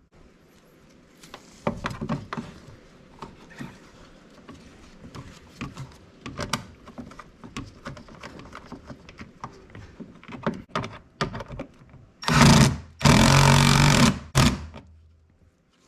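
Scattered clicks and knocks of car door parts being handled and fitted back together. Near the end a small electric motor runs in two short bursts, the second about a second long, with a brief blip after.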